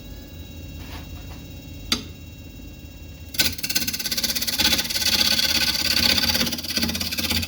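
Wood lathe running at medium speed with a steady motor hum, then about three seconds in a carbide turning tool bites into the spinning yellow cedar and walnut bowl blank, giving a loud, fast-pulsing cutting noise that carries on to the end.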